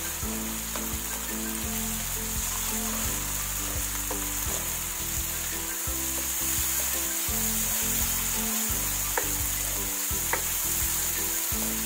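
Potatoes and onion-tomato masala sizzling in oil in a nonstick pan while a spoon stirs and scrapes them around, with a few light clicks of the spoon against the pan.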